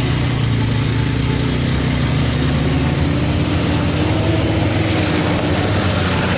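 A vehicle engine running steadily, its hum drifting slightly in pitch, with a constant rush of noise.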